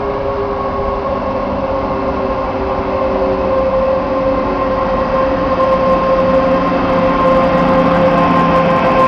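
Electric locomotive hauling a freight train of double-deck car-transporter wagons approaches and passes close by, getting steadily louder, with a steady whine over the rumble of the train.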